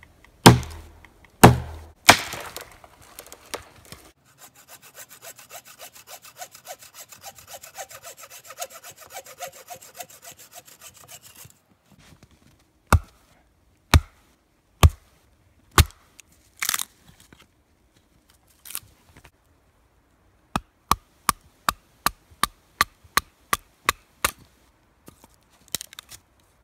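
Wood being cut with hand tools. First three heavy chopping strikes, then several seconds of steady back-and-forth sawing through wood. After that comes a spaced series of sharp axe strikes on a log, and near the end a quick run of lighter knocks, about three a second.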